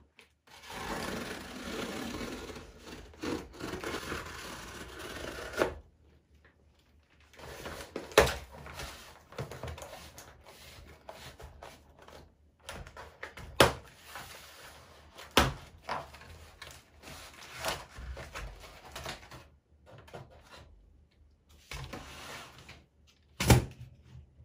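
A cardboard rail-kit box and its steel server rack slide rails being handled: cardboard rustling and rubbing for about the first five seconds, then quieter handling broken by several sharp knocks as a rail is lifted out and set down on the table.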